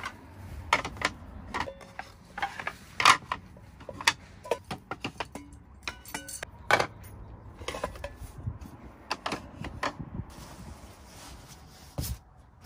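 A string of irregular light knocks and clinks, some with a brief metallic ring, from small hard objects being handled.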